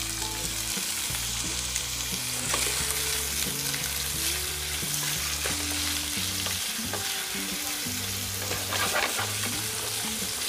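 Boiled bottle gourd (lauki) pieces sizzling as they are sautéed in hot oil in a pan, with a spatula stirring and scraping through them now and then.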